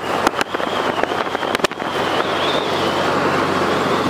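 Loud rushing wind and road noise from a car moving at highway speed with the window open. A few sharp pops come in the first two seconds, typical of wind buffeting the microphone.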